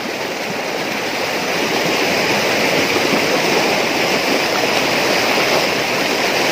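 Shallow river water rushing and splashing over rocks right beside the microphone: a steady, loud rush that grows a little louder over the first couple of seconds.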